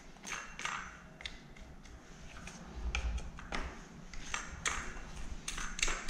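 A wooden stick scraping and knocking caked sawdust and grime off the sprocket area and housing of a Makita MEA3201M engine chainsaw, in a series of irregular scrapes and taps.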